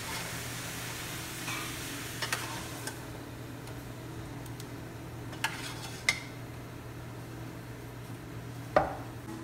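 Pot of beef bakso broth bubbling on the stove with the meatballs just added. A utensil clinks sharply against the pot a few times.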